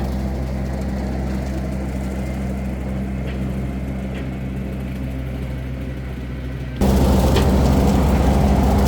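Farm tractor engine running steadily. About seven seconds in, the engine sound jumps abruptly louder and rougher.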